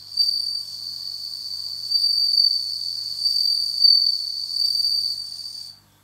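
Male suzumushi (Japanese bell cricket, Meloimorpha japonica) singing with its wings raised: a continuous high, ringing trill that swells and dips in loudness and stops suddenly near the end. It is the male's calling song to attract a female.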